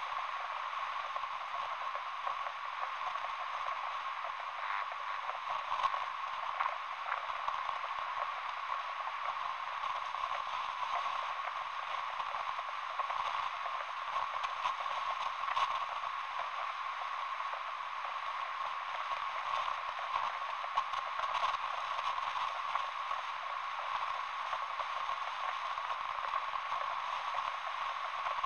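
Steady radio static: a hiss in a thin, narrow middle band with scattered crackles.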